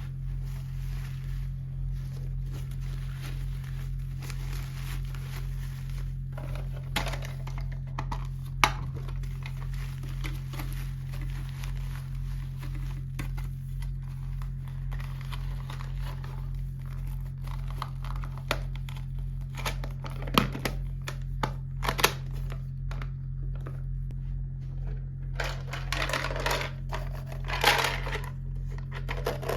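Hands unwrapping and handling plastic toy packaging: scattered sharp clicks and crinkling, with a denser stretch of crinkling near the end, over a steady low hum.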